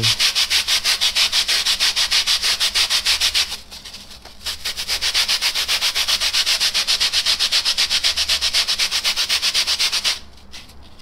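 Sandpaper rubbed back and forth over a polyurethane foam block in quick, even strokes, about five a second, hand-sanding the foam to shape. The strokes pause briefly about four seconds in, then stop near the end.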